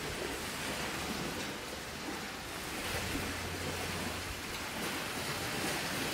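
Steady rushing outdoor ambient noise that swells and eases slightly, with a faint low hum for a second or so about three seconds in.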